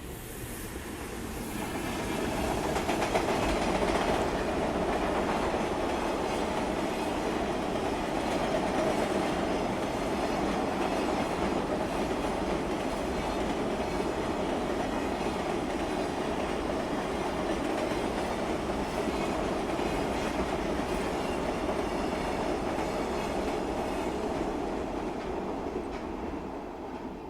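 A freight train hauled by a JR Freight EF210 electric locomotive rolls past at speed, its wagons running over the rails in a steady, loud rumble. The sound builds over the first couple of seconds, holds for more than twenty seconds, and drops away suddenly near the end.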